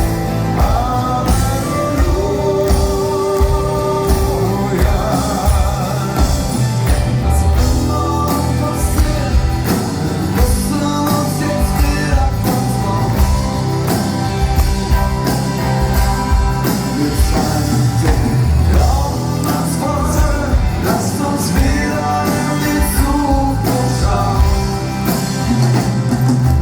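Live rock band playing, with a steady drum beat and bass under a gliding melodic lead line.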